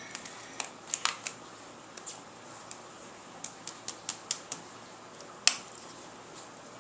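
Small plastic acrylic paint bottles clicking and knocking as they are picked up, handled and set down, a string of sharp taps with the loudest one about five and a half seconds in.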